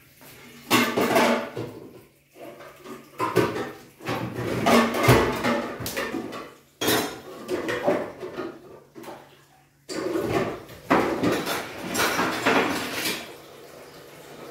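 Dishes, pots and cutlery clattering against each other and the sink as they are washed by hand, in several bursts with short pauses, quieter near the end.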